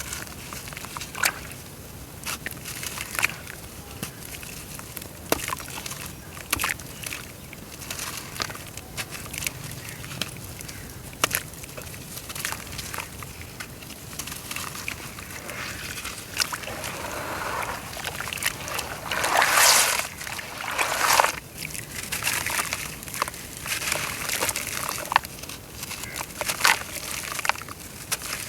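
Chunks of dry brown dirt crumbling in water, with many small scattered cracks and pops and a sloshing of water. Two louder splashing bursts come about twenty seconds in.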